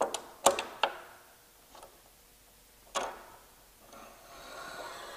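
An adjustable square is set against a table saw's miter slot and fence: three sharp clicks and knocks in the first second, another about three seconds in, then a faint rubbing scrape as the square slides along the slot. This is the check of the fence's alignment with the blade after a screw adjustment.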